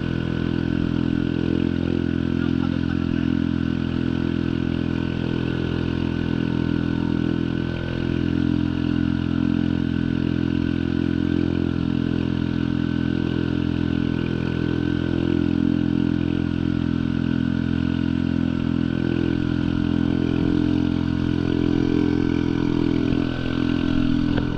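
A small boat engine running steadily at an even speed, driving the craft through the water.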